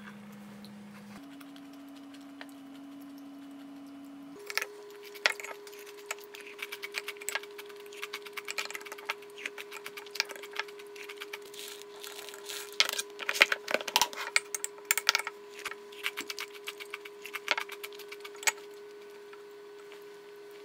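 Metal spoon clinking and scraping against a glass bowl of cereal and milk: a quick, irregular run of small clinks from about four seconds in until near the end, over a steady faint hum.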